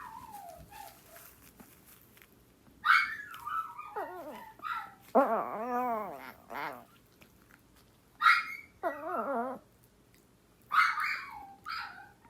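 Small dogs calling back and forth: sharp high yips are answered by a wavering dog howl, once at length and once more briefly. A few more yips come near the end.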